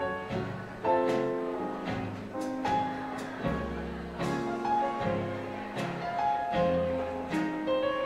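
Live dance band playing an instrumental passage of a slow swing-era ballad. Held chords sit over a moving bass line, with a soft beat about twice a second.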